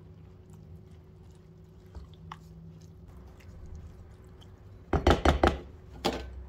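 Spatula mixing cooked rice into a wet egg mixture in a glass bowl, with faint soft squishing. About five seconds in comes a quick run of loud knocks and clatter, then one more knock a second later, as the spatula is knocked against the bowl and put down.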